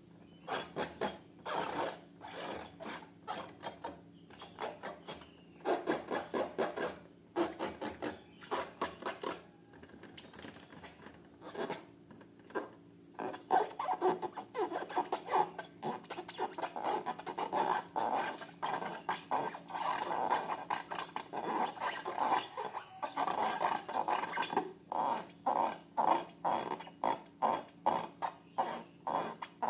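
Hands squeezing and rubbing rubber balloons and slime, making a long run of short, irregular rubbing and squishing strokes that come faster and louder in the second half, over a faint steady hum.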